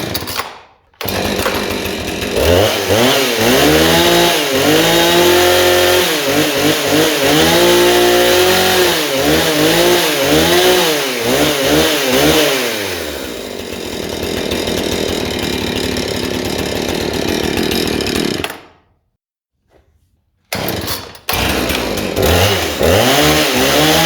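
Chainsaw engine revved up and down over and over, then running steadily for several seconds. It cuts out suddenly, stays silent for a couple of seconds, then starts again and revs up and down.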